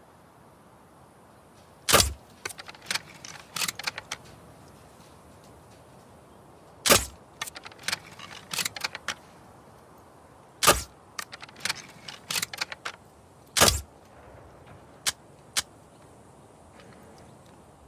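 Crossbow shots: four sharp snaps a few seconds apart, each followed by a short run of lighter mechanical clicks and rattles.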